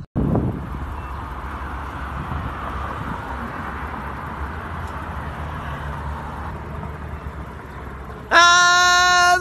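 Street traffic: a steady rumble of passing cars. About eight seconds in, a loud, steady tone blares for about a second.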